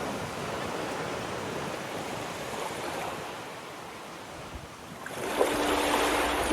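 Ocean surf washing onto a beach, a steady rush that eases a little and then swells louder about five seconds in as a wave breaks. A couple of steady tones come in near the end.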